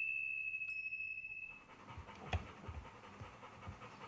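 A held, high, chime-like tone from the soundtrack fades out in the first second and a half. After it, a Labrador retriever pants softly, at about two breaths a second.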